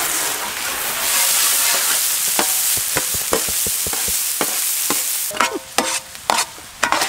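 A large heap of finely chopped onion dropped into hot oil in a big wok (kadai): a loud sizzle, with a long metal ladle scraping and clinking against the pan as it stirs. About five seconds in the sizzle dies down and the separate ladle strokes stand out.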